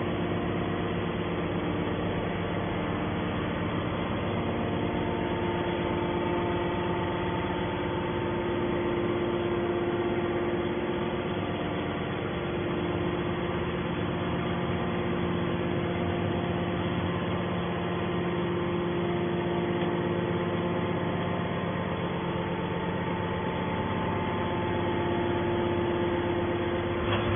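Hydraulic scrap metal baler's power unit running with a steady droning hum made of several held tones, without a pressing stroke.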